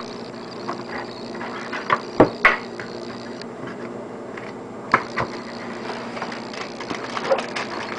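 Packaging being handled while the box is emptied: a few scattered clicks and taps over a steady background hum.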